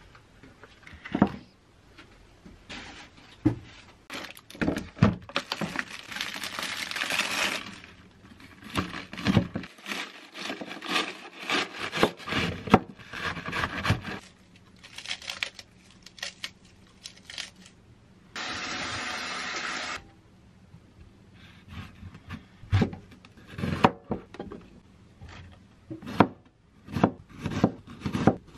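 Kitchen knife cutting crisp iceberg lettuce and then an onion on a plastic cutting board: a run of crunching cuts, with the blade knocking on the board. About two seconds of steady hiss comes past the middle.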